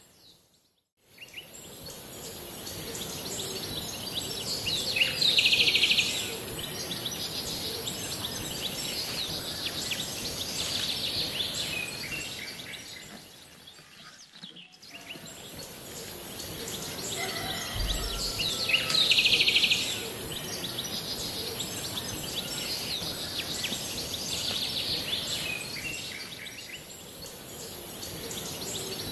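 Outdoor nature ambience: birds chirping over a steady high-pitched hiss, like insects. It fades out and back in about a second in and again about halfway through.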